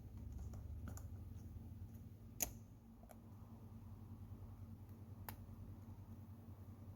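Faint taps and clicks of the small parts of a Chromecast remote being handled and fitted back together, with one sharp click about two and a half seconds in and another near the five-second mark, over a low steady hum.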